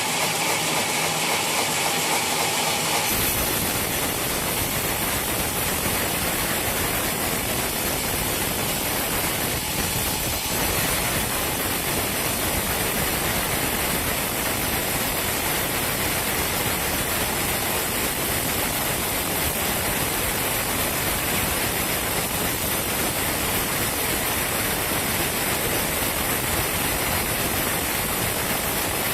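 Sawmill machinery running: a steady machine hum for about three seconds, then an abrupt switch to a loud, even rushing noise that holds steady.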